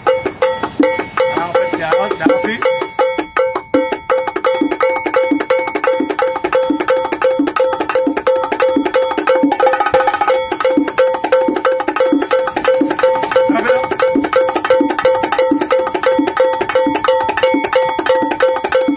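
A pair of bongo drums played by hand in a fast, unbroken run of strokes, the heads ringing between hits.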